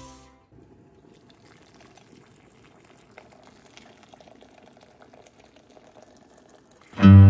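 Hot water poured from a kettle into a glass bowl around a small glass jar and its lid to sterilize them: a faint, steady splashing trickle. Loud guitar music cuts in near the end.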